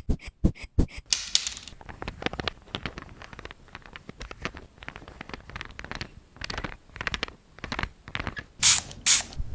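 Close-up scratching and scraping: a dense run of sharp clicks and rasps, with a few louder clicks in about the first second and again near the end.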